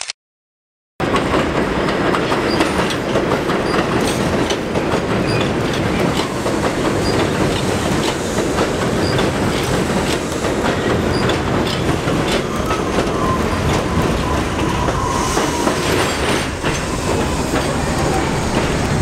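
After a second of silence, an R42 subway train runs on elevated track, its wheels clacking over the rail joints, with a thin wheel squeal in the second half.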